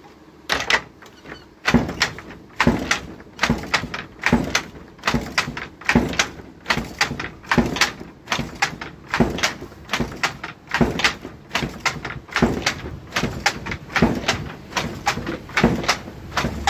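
Wooden handloom being worked at a steady rhythm: a clatter of sharp wooden knocks just over once a second as the shuttle is thrown and the beater packs in each pick of weft.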